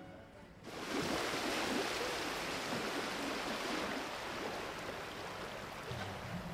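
Steady hiss of restaurant room ambience, starting just under a second in with no distinct voices or events.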